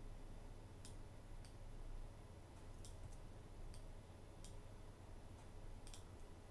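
Faint computer mouse and keyboard clicks: about seven short, sharp clicks at uneven intervals over a low steady hum.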